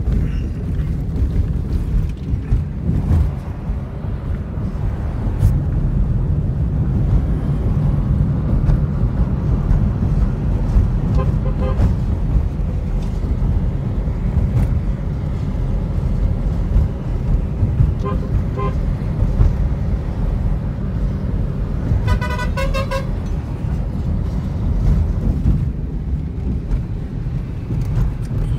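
Steady road and engine rumble inside a moving car's cabin. A vehicle horn sounds for about a second roughly two-thirds of the way through, with fainter short horn toots earlier.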